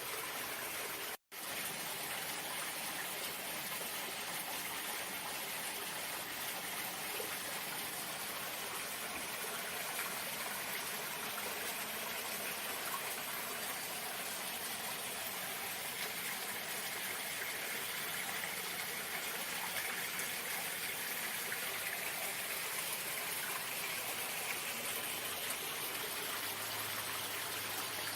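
Steady, even rush of running water, like a stream or small falls. It cuts out completely for an instant about a second in.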